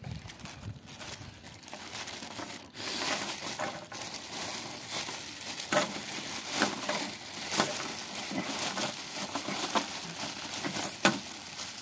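Thin plastic bag crinkling and rustling as a hand scrunches and wraps it around a bundle of plastic balls, with irregular sharp crackles throughout.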